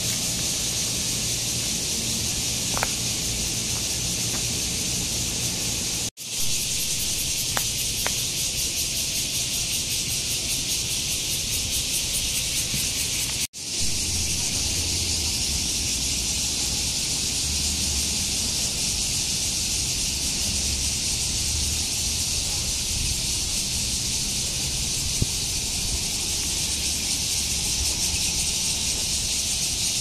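A chorus of cicadas buzzing, a steady, high, rapidly pulsing drone. It drops out for an instant twice, about six and thirteen seconds in.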